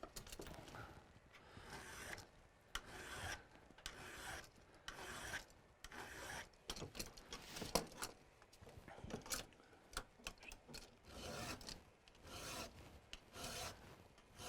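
Metal hand file rasping across the steel secondary points of an ice-climbing crampon in a run of short, separate strokes, filed in one direction only to sharpen the points.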